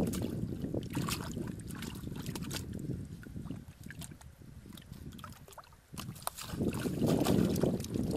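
Hands squelching and splashing in shallow muddy water while feeling for fish, with many small wet clicks and slaps. Low gusty rumbles of wind on the microphone come at the start and again near the end.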